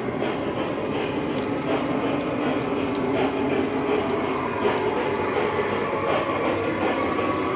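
Model train running steadily around the layout's track: a continuous rumble of wheels and motor with light clicking over the rail joints.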